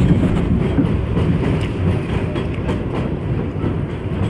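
New York City subway train running at speed, heard from inside the car: a steady rumble of wheels on the rails with a light clickety-clack.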